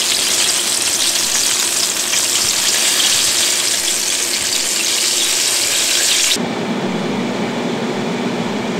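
Chicken wings deep-frying in a skillet of hot oil: a dense, steady sizzle full of small crackles. About six seconds in it cuts off suddenly to the steady hum of an air fryer's fan running.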